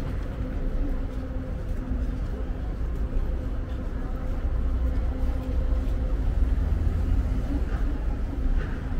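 City street traffic: a steady low engine rumble with a steady hum, swelling a little in the middle.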